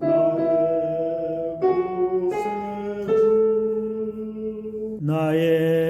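Man singing long held notes as a vocal demonstration, the pitch stepping to a new note every second or so. About five seconds in he starts a brighter, stronger held note.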